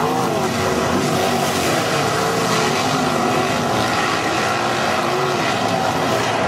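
A pack of non-wing sprint cars racing, their V8 engines running loud and steady together. Several engine notes overlap and rise and fall in sweeps as the cars throttle through the turns and pass by.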